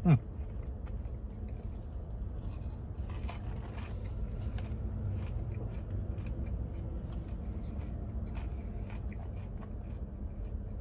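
A man chewing fries, with scattered small clicks and crackles over a steady low background hum. A short voiced grunt comes right at the start.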